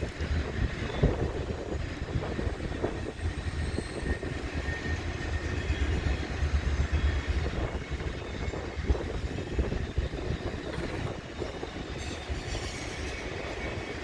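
Intermodal freight train cars rolling past: a steady rumble with wheels clicking over rail joints and a faint wheel squeal.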